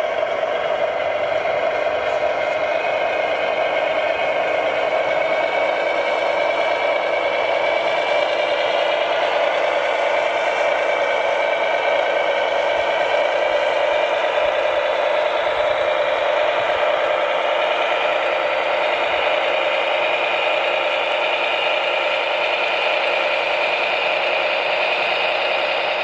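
Whine of radio-controlled model construction machines' electric motors and gearboxes, steady, with a pitch that drifts slowly up and down, and a light rattle.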